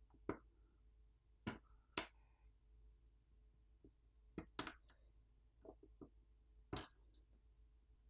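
Smartphone flex-cable connectors being popped off the main board with a pry tool: about eight short, sharp clicks and snaps, the loudest about two seconds in.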